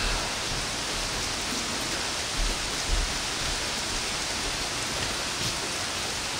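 Steady rain falling, an even hiss with a few soft low thumps.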